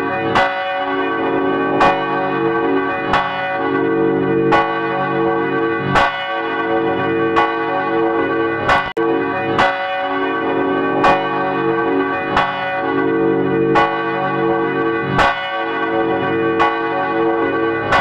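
Swinging church bell tolling, its clapper striking about every second and a half, each stroke ringing on with a dense shimmer of overtones over a pulsing lower hum. The bell audio has been altered by an audio effect.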